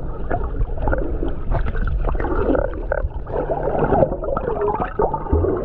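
Muffled sound of seawater heard from a camera under the surface, with bubbling, gurgling and sloshing as a swimmer dives.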